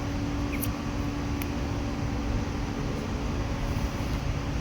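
Steady mechanical hum with a constant low tone, with a couple of faint ticks early on.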